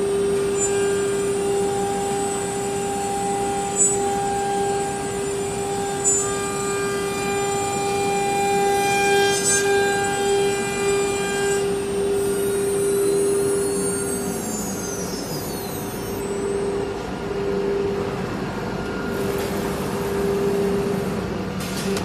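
CNC router's 9 kW air-cooled spindle running with a steady tone as it routes a profile into an MDF cabinet door. The higher tones drop away about twelve seconds in and a few sweeping pitch changes follow, with two short clicks early on.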